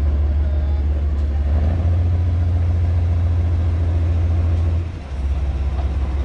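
Lxd2 narrow-gauge diesel locomotive approaching slowly, its engine a steady low drone that eases off briefly about five seconds in.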